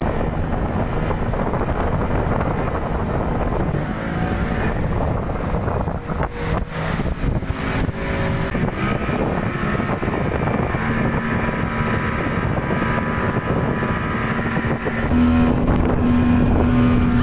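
Speedboat outboard motor running at speed, with wind buffeting the microphone and water rushing past the hull. A steady engine hum stands out near the end.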